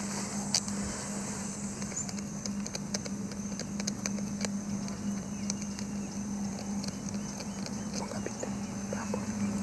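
Bush ambience: a faint steady insect drone with many scattered light clicks and ticks, over a low steady hum.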